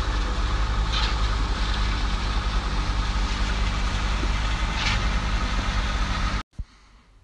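Heavy diesel engine of a truck-mounted concrete pump running steadily with a deep hum. It cuts off abruptly about six and a half seconds in.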